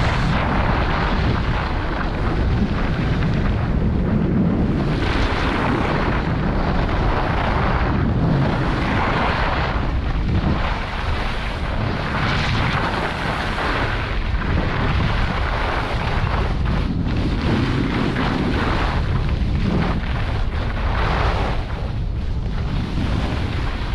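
Wind buffeting the microphone over the scrape and hiss of skis running on packed snow, swelling and easing in surges every second or two.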